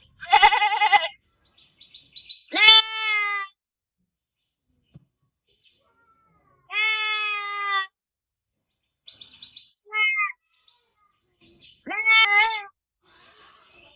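Goat bleating: about five separate calls a couple of seconds apart, the first with a quavering tremble, the second swooping up into a held note, the others held steady.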